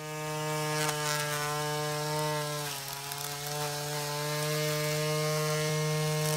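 Small battery-powered electric motor of a homemade mini lawn mower spinning its cutting blade, a steady buzzing hum. Its pitch dips slightly about three seconds in, then comes back up.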